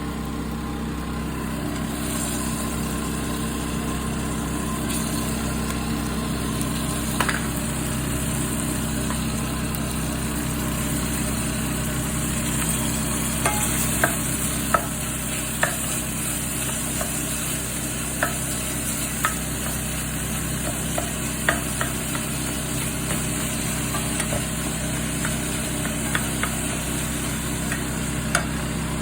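Minced beef frying in a pan with onion and garlic, sizzling steadily, while a utensil stirs it and knocks against the pan every second or so through the middle and end. A steady low hum runs underneath.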